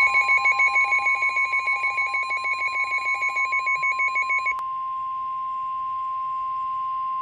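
NOAA Weather Radio warning alarm: one steady, high-pitched tone. A rapid pulsing beep sounds over it and stops about four and a half seconds in, leaving the steady tone alone.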